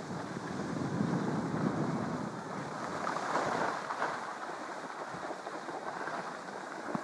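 Skis sliding and scraping over packed snow, mixed with wind on the microphone; the hiss swells about a second in and again around three to four seconds in.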